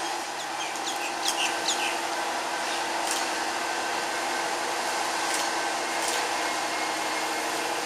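Steady drone of diesel railcars running at a station: the DERM rail motor and an arriving V/Locity diesel railcar. A few short bird chirps come about one to two seconds in.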